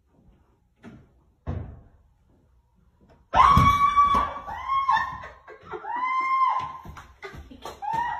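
A dull thump against the door, then a person screaming in fright: a run of about four loud, high-pitched screams starting a little over three seconds in.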